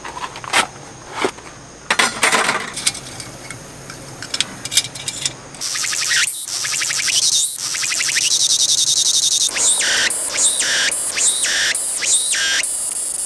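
Cicada singing in a pine tree: a loud, high, continuous buzz that starts about halfway through, then turns into a repeating rising-and-falling warble about once a second. Scattered sharp clicks and taps come before it in the first few seconds.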